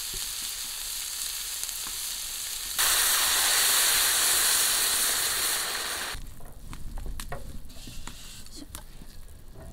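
Pork and pickled cabbage sizzling in a hot wok. About three seconds in, water is poured into the wok and the sizzle jumps to a loud hiss of steam for about three seconds, then stops suddenly. After that comes a quieter stretch with scattered clicks.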